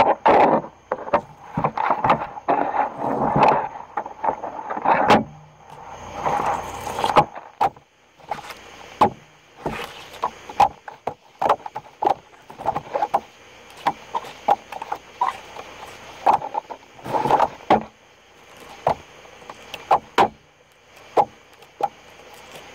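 Catfish being skinned by hand: irregular clicks and knocks from pliers and knife on the fish and table, with a few longer rasping sounds as the skin is pulled off.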